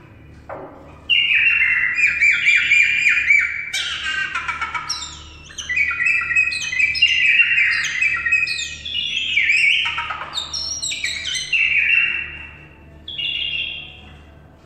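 Common myna singing a long, varied run of whistles, warbles and squawks, many notes sliding downward. It starts about a second in, breaks briefly about five seconds in, and ends with a short phrase near the end.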